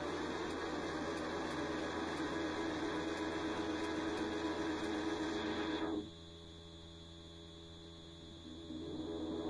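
Steady electronic drone from a sampler, held under a low mains hum. The drone cuts off about six seconds in, leaving only the hum, and comes back near the end.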